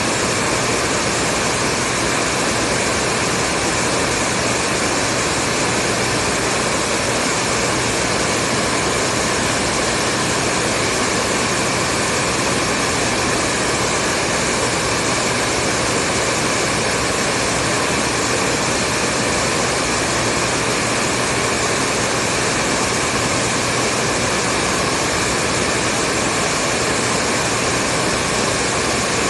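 Hair dryer blowing continuously at a steady speed: an even, constant rushing whoosh with a faint low hum.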